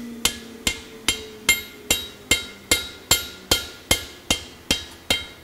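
Cross-peen hammer striking a red-hot steel bar on an anvil in a steady rhythm of about two and a half blows a second, each blow with a short metallic ring. The peen is spreading the hot bar out widthwise.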